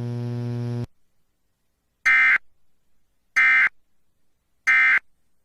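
Emergency Alert System end-of-message signal: three short, identical bursts of screechy SAME digital data tones, evenly spaced about a second apart, closing the severe thunderstorm warning. Before them a steady hum cuts off under a second in.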